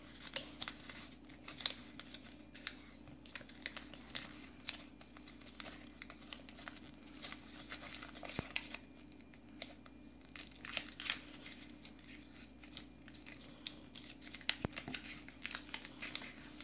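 A sheet of origami paper rustling and crinkling as it is folded and creased by hand, in many short, scattered crackles. A faint steady hum lies underneath.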